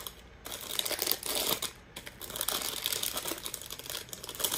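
Plastic blind-bag wrapper crinkling and crackling in the hands as it is torn open and handled, in an irregular run of small crackles.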